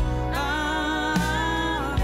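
Worship band song: a singer holds one long note with vibrato over acoustic guitar, piano, bass guitar and drums, with a kick drum beat about once a second.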